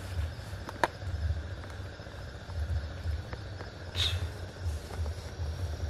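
Faint steady chirring of night insects over an uneven low rumble, with a sharp click just under a second in and a brief higher sound about four seconds in.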